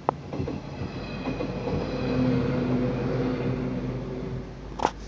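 Electric train passing, its steady motor hum swelling to a peak about midway and then fading away. Sharp clicks come at the start and near the end.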